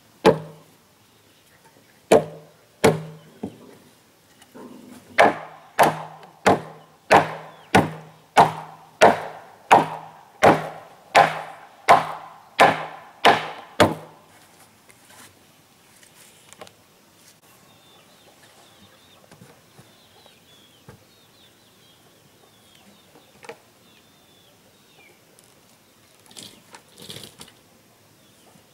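Heavy blows of a tool on wood: a few separate strikes, then a steady run of about fourteen, roughly three every two seconds, that stops about halfway through. Faint bird calls follow.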